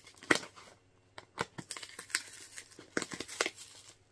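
A sellotaped cardboard parcel being torn and picked open by hand: a run of short, irregular rips and crinkles of tape and packaging.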